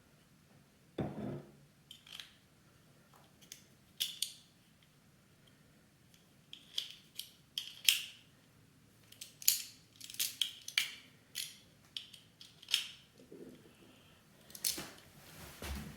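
Irregular small metallic clicks and taps from an old cabinet door lock and its key being worked and handled, with a duller knock about a second in.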